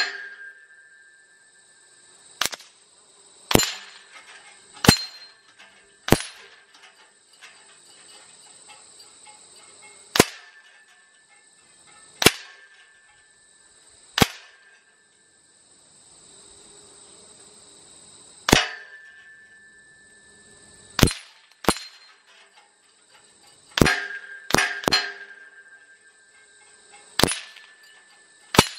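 Pellets from an LCS SK-19 air rifle striking hanging steel targets: a sharp metallic clang with each hit, some ringing on briefly. About fifteen irregularly spaced hits, with a quick cluster of three near the end.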